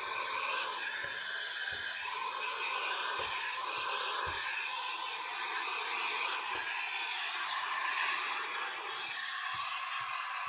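Electric heat gun blowing steadily, heat-shrinking window tint film to fit a large curved glass window. A few soft bumps sound underneath.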